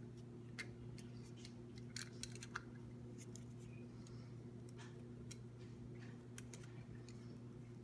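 Faint scattered clicks and crackles of the red protective liner being peeled off the double-sided adhesive tape on a carbon fiber trim piece, a small cluster of them about two seconds in. A steady low hum runs underneath.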